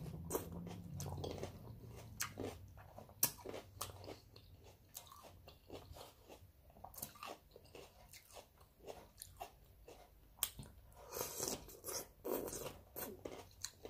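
A person chewing raw cucumber close to the microphone: irregular crisp crunches and wet mouth clicks, with a busier run of crunching near the end.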